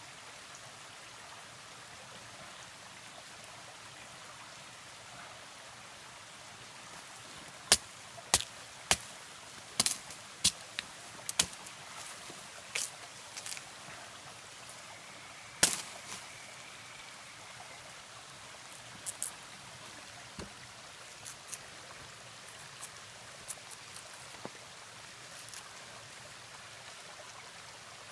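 Knife cutting and chopping into a palm stem to get at the palm heart: irregular sharp cracks and knocks, starting about eight seconds in and thinning out near the end, over the steady rush of a stream.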